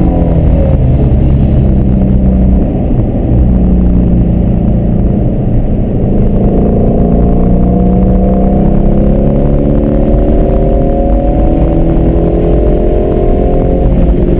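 Shelby GT350's flat-plane-crank V8, heard from inside the cabin on track. It holds a steady lower note for the first few seconds, then revs up steadily under acceleration for about eight seconds. Near the end the pitch drops with a gear change.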